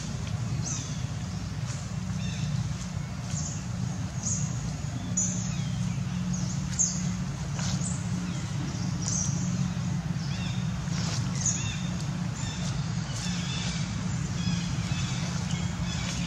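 Outdoor ambience: short high bird chirps every second or so over a steady low hum.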